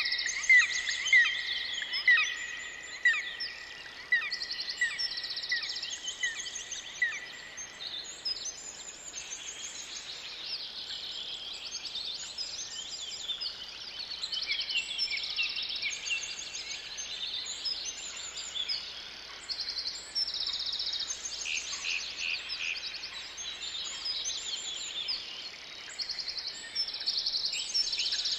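Forest bird chorus: many birds singing and calling at once, with a loud, sharp repeated note during the first seven seconds or so.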